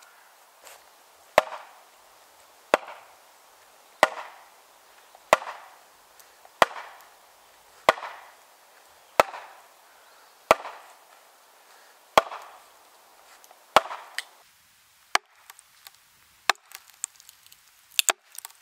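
Heavy oak maul striking the poll of an axe driven into a green ash log to cleave it. It lands about ten sharp, evenly spaced blows, one every second and a quarter or so, then a few lighter knocks, two of them close together near the end.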